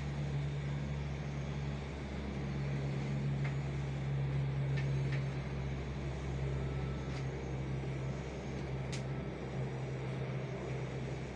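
A steady low mechanical hum over a background of rumbling noise, with a few faint clicks.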